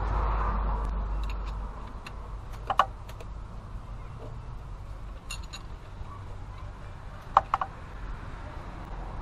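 Metal clicks of a wrench and feeler gauge on the rocker arms of a Cummins 5.9 L diesel during valve lash adjustment. A sharp double click comes about three seconds in, a lighter click near the middle and another sharp double click near the end, over a low background rumble that fades after the first couple of seconds.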